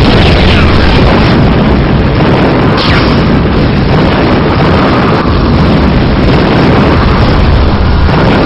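Explosion sound effect: a loud, continuous blast of noise without letting up, with two falling whooshes in the first three seconds.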